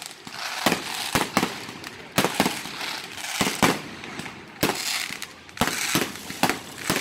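Aerial fireworks going off: an irregular run of sharp bangs, about two to three a second, with a hissing haze between them.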